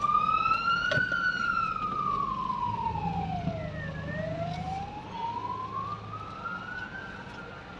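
Emergency vehicle siren on a slow wail: the pitch climbs for about three seconds and falls for about three seconds, twice over. It fades toward the end, over a low steady hum of the car.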